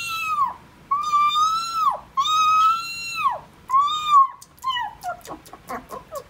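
A woman imitating a kitten eating: a string of high, arching meows, then from about five seconds in quick smacking clicks, about four or five a second, like a kitten chewing.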